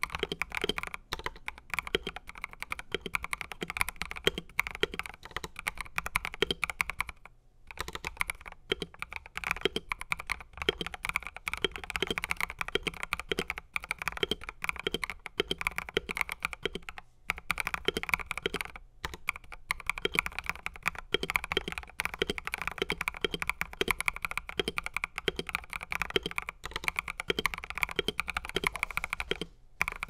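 Rapid continuous typing on an Epomaker EP75 mechanical keyboard with Epomaker Flamingo linear switches, a stainless steel plate and ESA PBT doubleshot keycaps. The keystrokes run densely, broken by three brief pauses.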